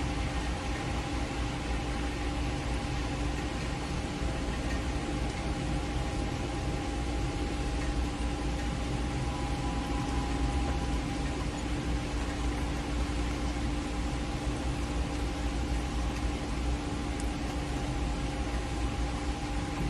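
Steady rain, an even hiss, with a steady hum of a few tones beneath it.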